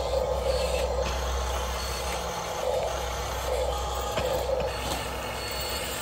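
Huina remote-control excavator working its boom and bucket, its electric motors and gearboxes whirring, with a mid-pitched tone pulsing about once a second over a steady low hum.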